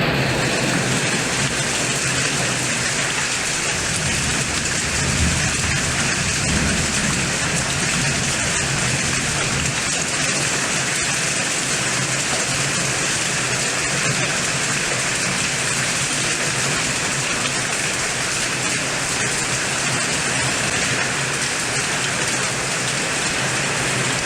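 Heavy rain in a storm: a dense, steady hiss of downpour on surfaces, with a low rumble about four to seven seconds in.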